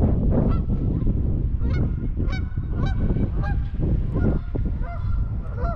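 Geese honking: a flock calling over and over, many short honks in quick succession, some overlapping, starting about half a second in. Heavy wind rumble on the microphone sits underneath.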